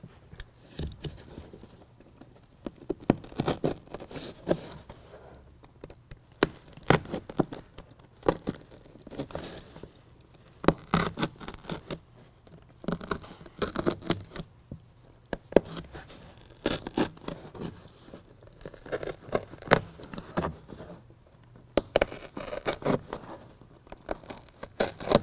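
BedRug carpet-faced, foam-backed bed liner being worked by hand over the box link bolts on a truck bed sidewall: irregular short bouts of rubbing, scraping and tearing of the liner material, with brief pauses between.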